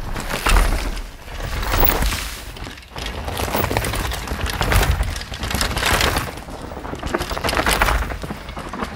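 Specialized Demo 8 downhill mountain bike ridden fast down a dirt forest trail: tyres crunching over dirt, roots and twigs with crackling and clattering, coming in several loud surges as the bike passes.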